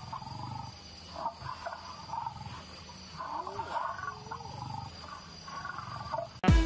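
Recorded dinosaur roars and growls played for an animatronic dinosaur, coming in low rumbling swells about every two seconds. Near the end, electronic music cuts in with a loud hit.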